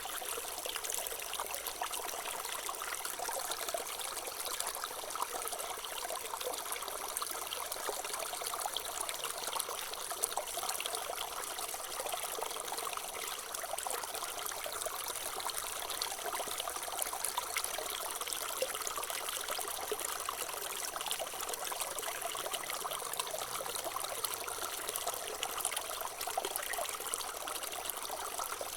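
Water trickling steadily and without a break.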